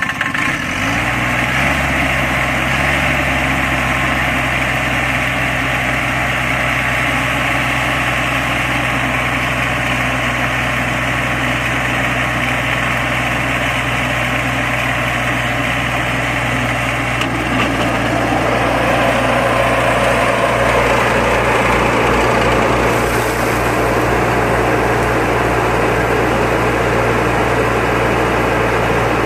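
Baroness LM320AF ride-on front-deck mower's 20 hp engine running steadily while mowing tall grass, its pitch rising about a second in as it speeds up. About 17 seconds in, the sound grows a little louder and fuller.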